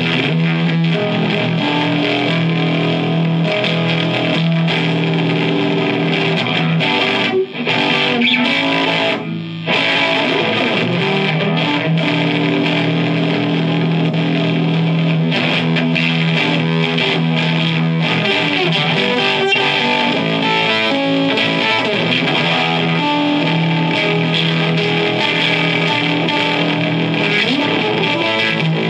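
Electric guitar playing sustained fuzz-distorted notes and chords through a BOSS TB-2W Tone Bender fuzz pedal boosted by a BOSS BP-1W Booster/Preamp into a Marshall JCM900 amplifier, the booster switched from its RE to its CE mode partway through. The playing breaks off briefly twice, about 7 and 9 seconds in.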